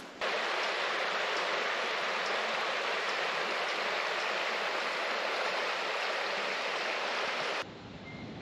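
Steady rushing water of a stream. It starts abruptly just after the opening and cuts off suddenly near the end.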